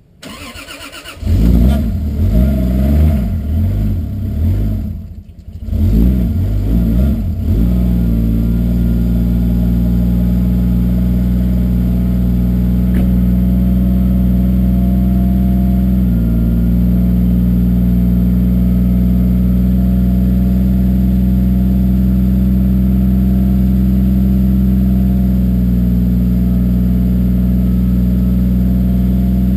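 Toyota 2JZ-GTE turbocharged inline-six, with a single Turbonetics T70 turbo and a catless 3-inch exhaust, cranked on the starter and catching about a second in. It runs unevenly with rising and falling revs for several seconds, dipping briefly about five seconds in, then settles into a steady idle about seven seconds in.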